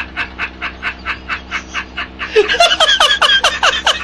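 Meme laughing sound effect: rapid, rhythmic laughter pulsing about five times a second, joined a little past halfway by a second, high-pitched squeaky laugh in short falling bursts.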